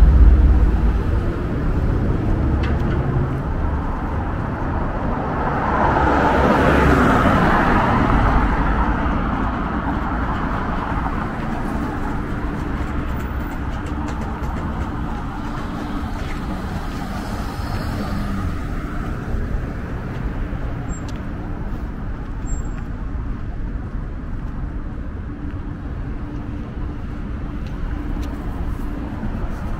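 City street traffic: cars running past with a steady low rumble, one vehicle passing close and loud about six to eight seconds in.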